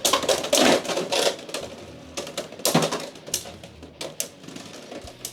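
Two Beyblade X tops, Shark Edge 9-60 Low Flat and Leon Claw 9-80, spinning and colliding in the stadium. Rapid sharp clacks of hits come thick in the first second and a half, then scattered knocks.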